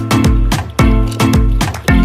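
Background music with a steady beat and a strong bass.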